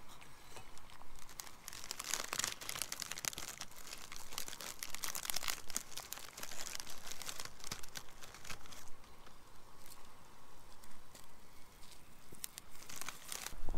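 Steel cup of water heating on a homemade soda-can alcohol stove, with a dense crackling and sizzling that dies down after about nine seconds. A few light clicks come near the end.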